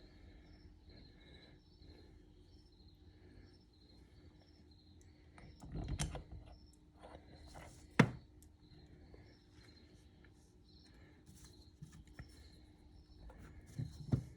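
Knocks and rustles of caliper parts and bolts being handled on a workbench, the sharpest knock about eight seconds in, over a low steady hum and faint repeated chirping in the background.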